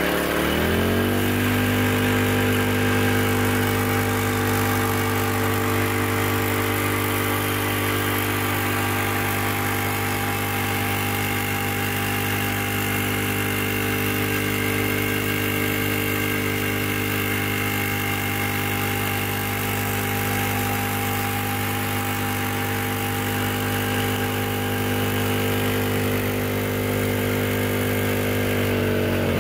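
Champion portable generator's single-cylinder OHV gasoline engine comes up to speed in the first second and runs steadily at its governed speed on only the gasoline held in the carburetor bowl. Near the end its pitch starts to drop as the engine slows, that small reservoir running dry after about 30 seconds.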